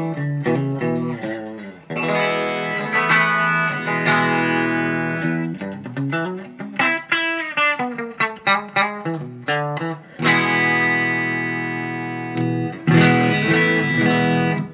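Electra Phoenix X-145VS electric guitar played on its bridge single-coil pickup: picked runs and strummed chords, with a long chord left ringing about ten seconds in and a hard strum just after it.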